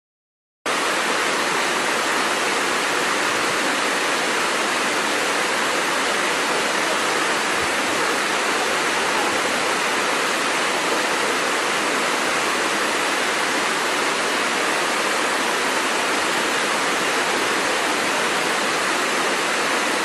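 Waterfall: a steady, even rush of falling water, starting abruptly just under a second in.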